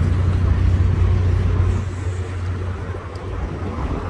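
Low rumble of a passing road vehicle's engine and tyres, easing off about halfway through.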